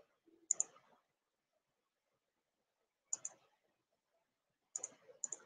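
Computer mouse button clicking four times over near silence, each click a quick double tick.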